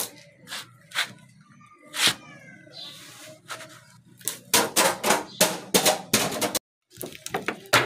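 Plastic bottles tumbling down stone steps: a few separate knocks, then from about four and a half seconds in a rapid run of clattering hits as the bottles bounce down, cut off briefly before more hits near the end.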